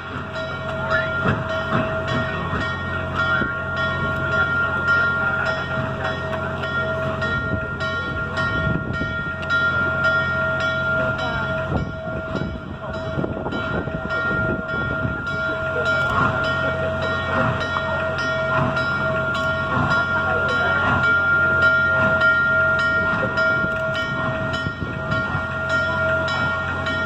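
Norfolk & Western J-class 4-8-4 steam locomotive No. 611 under steam and moving slowly. A steady whine runs throughout over hissing steam and irregular puffs.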